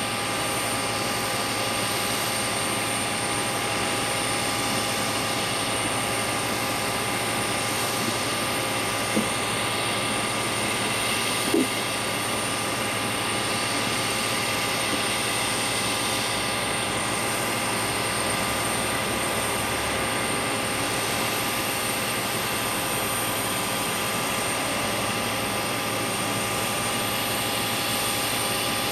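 Steady whine and rush of a parked Boeing 737 jet airliner's turbine, several unchanging high tones over a constant roar. Two brief faint clicks about nine and eleven seconds in.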